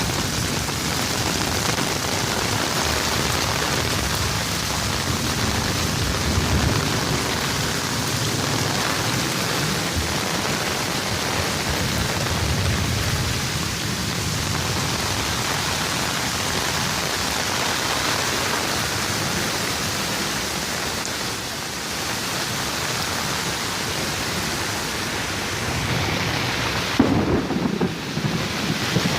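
Heavy rain pouring down steadily during a storm, with a low rumble underneath. A short louder thump comes about two seconds before the end.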